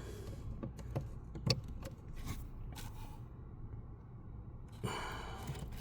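A few faint, short clicks and handling rustles from the plastic brake light switch being fitted into its mount under the dashboard, over a low steady hum.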